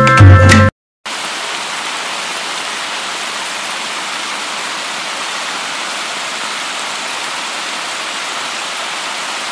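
Heavy wind-driven rain from Hurricane Ian, falling in a steady hiss that starts about a second in, after a short bit of background music cuts off.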